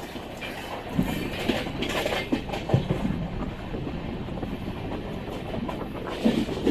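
Passenger train coach running along the line: a steady rumble with the wheels clattering over rail joints, a run of sharper knocks about a second in and again near the end.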